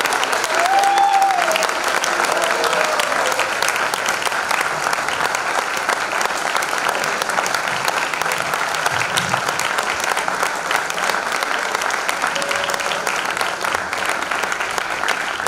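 Concert audience applauding steadily, with one voice cheering briefly about a second in.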